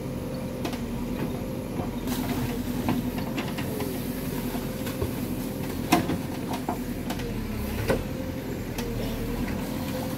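Hydraulic excavator's diesel engine running steadily under load, with a few sharp knocks as the bucket and boom work.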